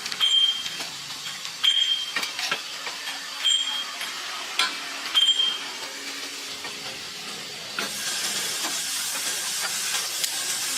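Sharp clicks and clinks with four short high squeaks, then a steady hiss of escaping pressurised gas starting about eight seconds in.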